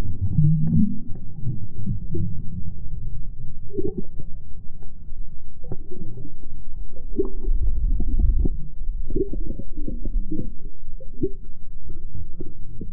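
Muffled underwater sound heard through a submerged action camera's housing: a steady low rumble of moving water with many small knocks and clicks scattered through it.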